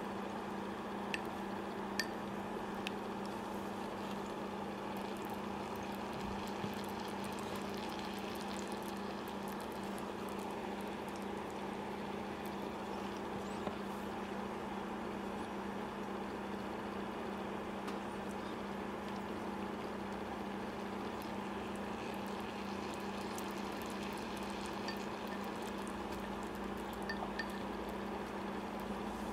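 A steady hum under a soft, even bubbling of a simmering sukiyaki pan, with a few light clicks of wooden chopsticks against a ceramic bowl.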